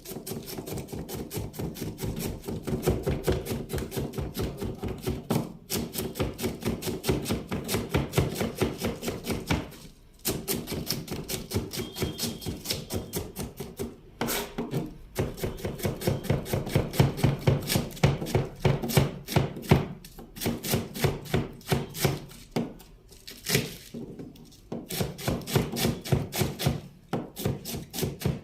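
Kitchen knife chopping cabbage into julienne strips on a cutting board: rapid, even strokes, about four or five a second, with a few short pauses.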